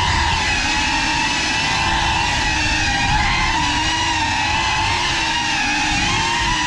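GEPRC Cinelog35 6S cinewhoop's motors and ducted propellers whining steadily in flight, the pitch dipping and rising a little with the throttle.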